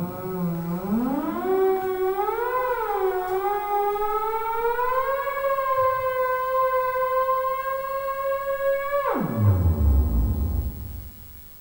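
Prepared theremin playing one sustained, gliding tone: it slides up from a low pitch, wavers up and down, then climbs slowly and holds before swooping sharply down about nine seconds in and fading out.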